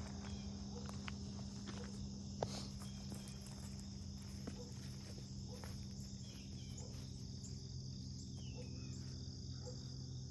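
Insects chirping steadily in one continuous high band, over a low steady hum, with a single sharp click about two and a half seconds in.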